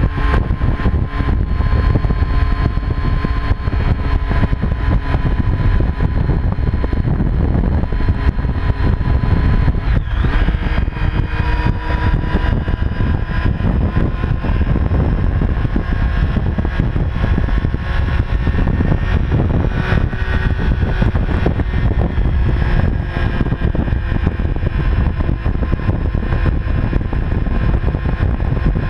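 Motorcycle engine and exhaust running steadily with no sharp revs, its pitch shifting about ten seconds in.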